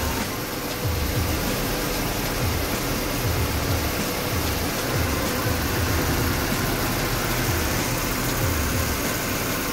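An old Volvo turbo sedan's engine idling with the air conditioning running while the AC is charged with R134a: a steady, even mechanical and blower noise. Under it is a low pulse about every 0.7 seconds.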